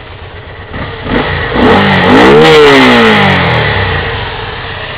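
Kawasaki Vulcan motorcycle engine blipped once from idle: the pitch climbs for about a second and a half, then falls back to a steady idle. It runs without the knock that worn balance-shaft dampers had caused, the dampers freshly fitted with new metal bushings.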